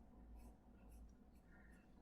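Near silence: faint sketching strokes on paper, barely above the room hiss.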